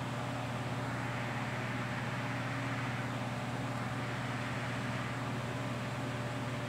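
Steady low hum with an even hiss of background room noise, unchanging throughout.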